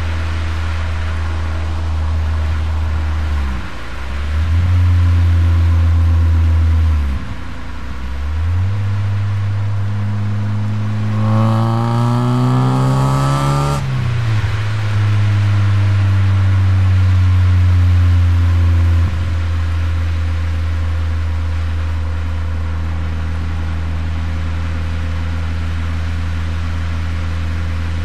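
Exhaust note of a Corsa's C20XE 2.0-litre 16-valve four-cylinder, picked up by a microphone at the exhaust while driving. It runs steadily and dips briefly twice in the first several seconds. The revs then climb steadily for about five seconds under acceleration and drop sharply, and the car goes back to steady cruising.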